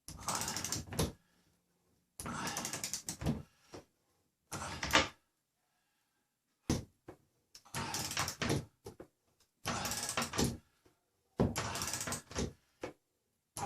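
Short bursts of rapid mechanical clicking, about seven of them, each lasting up to about a second, cut apart by dead silence.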